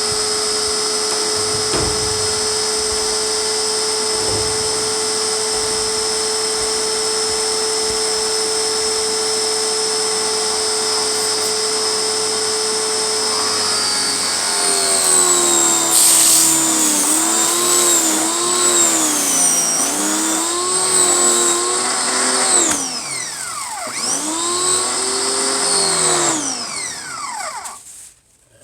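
Pressure washer running with a steady motor whine. About halfway through, the pitch starts wavering up and down under changing load. It dips sharply once, then winds down and stops near the end.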